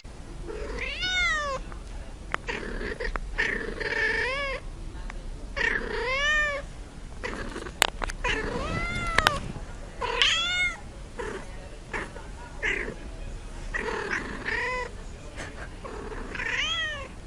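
Domestic cat meowing over and over, long drawn-out meows that rise and fall in pitch, one every couple of seconds.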